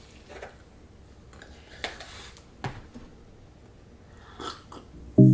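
A few scattered light clicks of a metal fork against a plastic food container while eating. Music comes in suddenly near the end.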